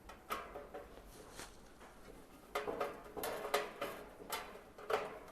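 Light metallic clicks and knocks with a brief ring, a few at first and then a busier run of them in the second half, from a screwdriver and the galvanised steel flap and hopper being worked as a flap is screwed onto the chicken feeder.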